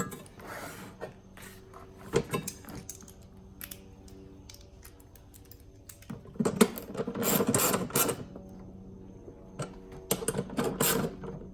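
Hand ratchet clicking in bursts as bracket bolts are run down and snugged, with small metallic clatter between.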